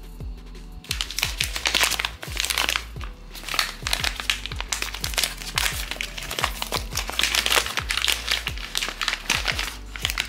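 Crinkling and crackling of blind-box packaging being unwrapped by hand, coming in repeated bursts, over steady background music.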